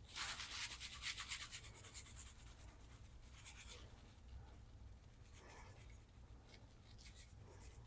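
Garlic salt being shaken from a shaker onto raw chicken tenders: a faint, quick run of fine rattling shakes for about two seconds, then a few short shakes later on.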